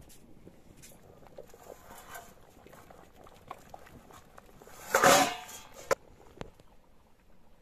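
An aluminium pot of rice boiling on a wood fire, with soft bubbling and crackling ticks. About five seconds in comes a short, loud metallic scrape and clatter as the lid and a metal ladle work the pot, followed by a couple of sharp clinks.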